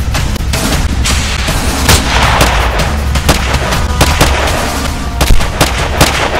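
Gunfire: many single shots in quick, irregular succession, about two a second, the loudest near the end, with background music underneath.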